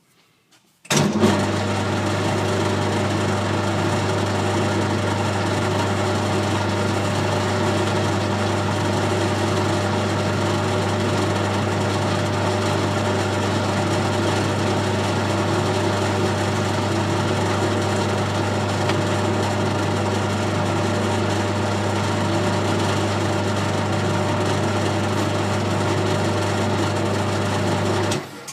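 Colchester Student lathe switched on about a second in and running steadily through a screw-cutting pass on an internal 3/8-12 ACME thread, with a strong low hum and several steady tones above it. It is switched off and stops abruptly near the end.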